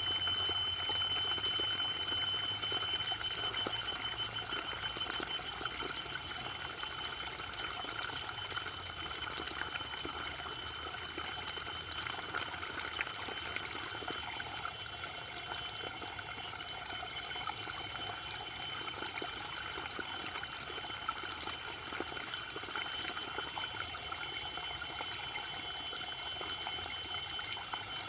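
Waterfall: a steady, even rush of falling water, with a thin high-pitched tone held steadily over it.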